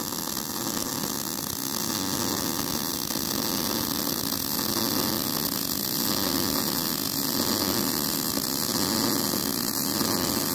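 Miller-Matic 185 MIG welder arc burning on mild steel, a constant buzzing sizzle with no breaks. The even, unbroken sound is the one that shows the wire feed speed set close to right, with no stumbling or sputtering.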